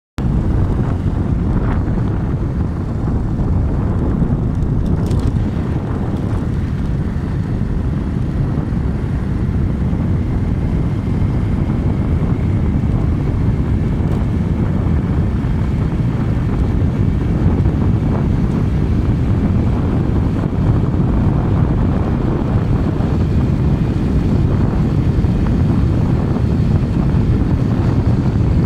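Steady low rumble of wind buffeting the microphone mixed with the running of the vehicle that carries it along the road.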